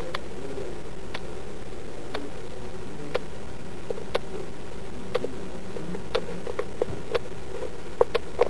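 Quartz watch movement ticking about once a second, heard through the watch's own built-in microphone over a steady hiss. A few louder clicks come close together near the end.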